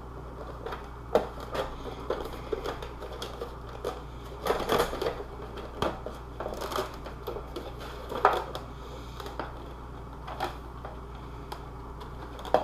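Hands handling and fitting pieces of a costume armor shin: irregular light knocks, clicks and short rustling scrapes as parts are pressed and held together, over a steady low hum.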